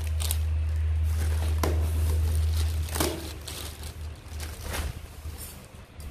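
Plastic bags of vegetables rustling and crinkling a few times as they are handled in a styrofoam box, over a steady low hum that is louder in the first half and fades down about halfway through.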